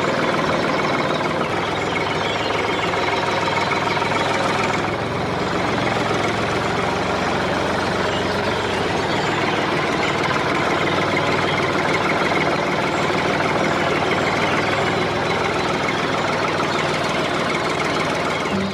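An engine running steadily, with a slight dip in level about five seconds in.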